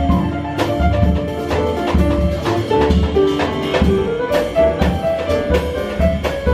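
Instrumental jazz passage: a drum kit keeps a steady beat under a bass line while a melody instrument plays held notes that move up and down.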